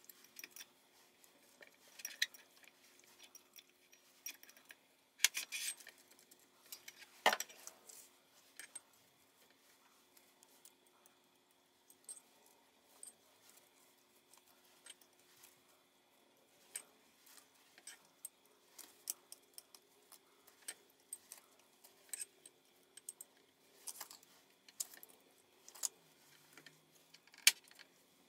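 Wooden chopsticks and gloved fingers clicking and tapping against a glass mason jar as salad ingredients are packed in: scattered light clicks with a few sharper knocks, the loudest near the end.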